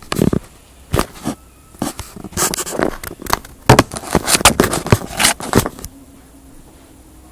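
Irregular rustling, scraping and knocking handling noise, as of bedding or the recording device being moved. It stops about six seconds in, giving way to a faint steady hum.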